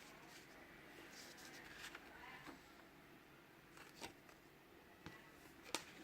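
Faint rustling of paper and card being handled, with a few sharp taps, the loudest about four seconds in and near the end.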